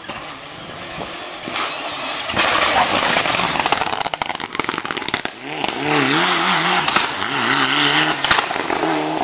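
Rally cars passing at speed on a closed stage. One car goes by close at full throttle with a rapid crackling; then, from about halfway, another engine's pitch swings up and down as the revs rise and fall.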